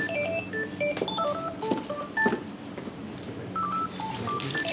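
Background music of short, plinking electronic notes hopping between pitches in a repeating pattern over a low sustained tone, with a few faint clicks.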